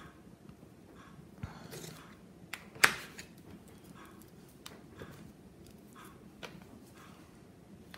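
Light clicks and taps of nail-stamping tools (metal stamping plate, scraper card and silicone stamper) being handled on a table, with a short scraping rasp just before two seconds in and one sharp click about three seconds in.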